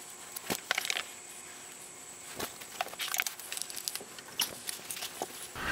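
Light handling noises: scattered small clicks and rustles as a coiled power cable is unwound and handled.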